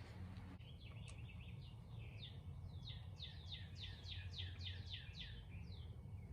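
A songbird singing a quick run of short, falling notes, about three a second, over a faint low rumble of background noise.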